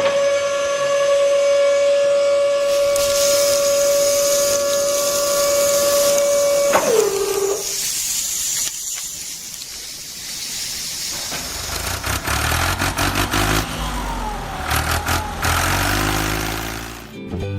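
A steady whistle-like tone held for about seven seconds, sagging in pitch as it cuts off, followed by a stretch of hissing noise; low engine-like rumbling comes back near the end.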